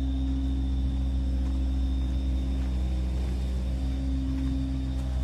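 A steady low rumble with a constant hum over it, unchanging throughout.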